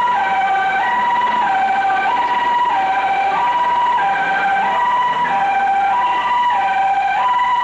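Emergency vehicle's two-tone hi-lo siren, alternating evenly between a higher and a lower pitch about every three quarters of a second.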